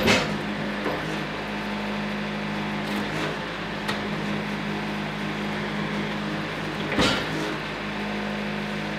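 Wood-Mizer portable band sawmill's engine running steadily with a fixed hum, with a few wooden knocks over it and a louder knock about seven seconds in.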